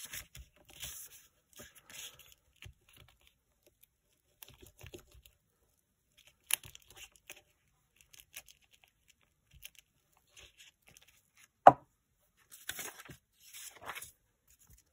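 Paper being handled and rustled: a brown paper bag and a book page shuffled and slid over a cutting mat in short, scattered rustles. One sharp click stands out about three-quarters of the way through.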